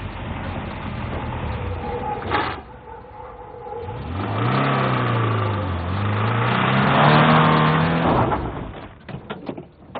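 An old saloon car's engine running and revving as the car drives off, its pitch rising and falling between about four and eight seconds in, with a sharp knock a couple of seconds in. The engine sound fades near the end, followed by a few light clicks.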